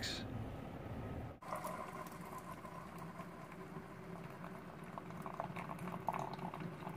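Single-serve coffee maker brewing, a thin stream of coffee pouring into a ceramic mug with the brewer's bubbling. It starts about a second and a half in, after a short stretch of faint outdoor background.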